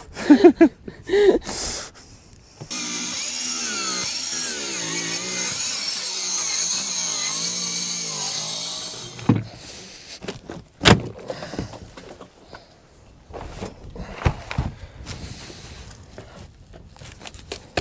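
Ryobi cordless angle grinder cutting through wooden deck planking for about six seconds, starting about three seconds in, its whine wavering in pitch under load. After it stops, knocks, a sharp crack and scraping as rotten deck wood is broken and pulled away.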